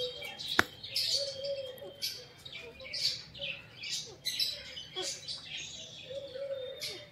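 A pair of Alexandrine parakeets calling while mating: short high chirps repeating about once a second, with softer, lower rising-and-falling calls between them. One sharp click about half a second in.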